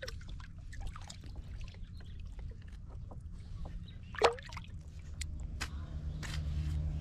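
Shallow water lapping and splashing as a striped bass is released by hand, with small splashes and one sharp splash about four seconds in, and wind rumbling on the microphone. In the last couple of seconds a steady low hum sets in, with scattered knocks.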